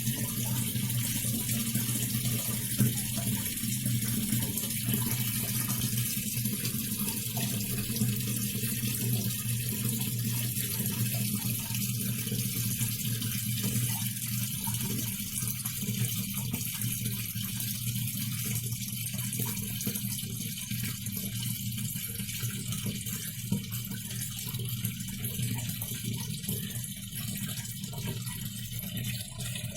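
Videocon DiGi RIO PLUS 6.5 kg washing machine filling with water: a steady rush of water into the tub with a steady low hum under it, the machine running on its newly fitted universal control board.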